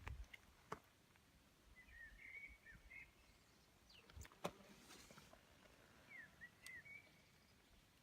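Near silence with faint bird chirps, in two short bursts about two and six and a half seconds in, and a few light clicks.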